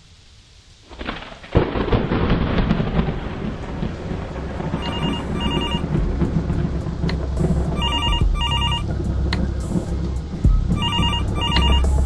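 A telephone ringing in pairs of short rings, three times, starting about five seconds in, over a loud, noisy wash with a deep low rumble that starts suddenly about a second and a half in.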